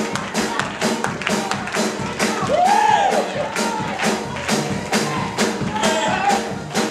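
Gospel praise music: a fast, steady beat on drums and tambourine over sustained chords, with a voice calling out that rises and falls about two and a half seconds in.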